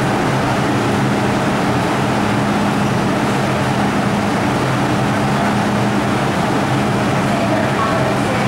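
Steady hum and rushing noise of an underground metro station platform, with a constant low drone that holds the same level throughout.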